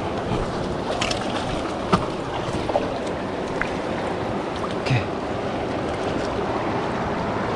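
Steady rush of flowing river water, with a few brief ticks.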